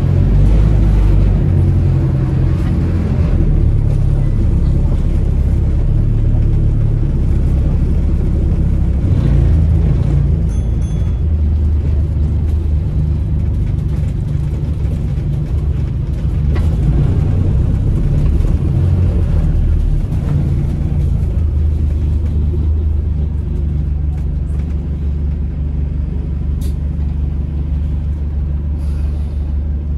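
Interior sound of an Alexander Dennis Enviro400 Hybrid MMC double-decker bus on the move: a steady low drone from the hybrid drivetrain with road rumble, shifting slightly in pitch as the bus speeds up and slows.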